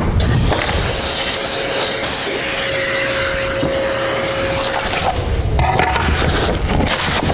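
Router cutting through a wood floor along a template to open the hole for a flush-mount vent: a steady high hiss with a faint whine that eases off about five seconds in, followed by rougher, lower noise.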